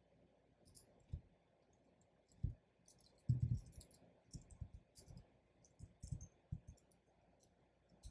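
Typing on a computer keyboard: faint, irregular keystroke clicks, with a quick cluster of keys about three seconds in.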